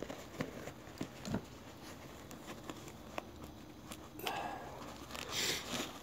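Faint handling sounds of a nylon MOLLE sheath strap being threaded through the webbing loops of a tactical bag: scattered small clicks and taps, with a brief rustle of sliding fabric near the end.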